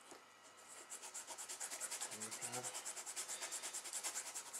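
Small file rasping against a polystyrene plastic kit part in quick, even back-and-forth strokes, about five or six a second, starting about a second in, smoothing off the excess plastic left where a sprue spur was cut away.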